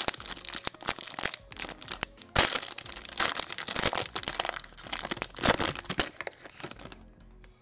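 Plastic cello-pack wrapper of a trading-card pack crinkling and tearing as it is ripped open and crumpled by hand, a dense crackling that dies away near the end.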